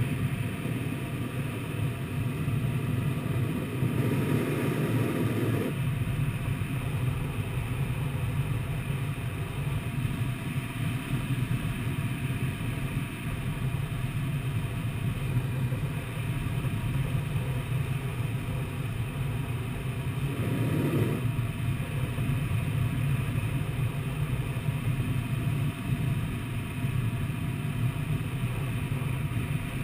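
Steady rush of airflow over the canopy and fuselage of a Twin Astir glider gliding in to land, heard from inside the cockpit, with two brief swells about four seconds and twenty seconds in.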